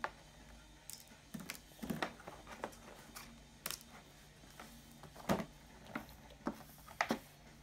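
Scattered, irregular clicks, taps and rustles of a cardboard-and-plastic toy box being handled and cut open with scissors, the sharpest knock a little past the middle.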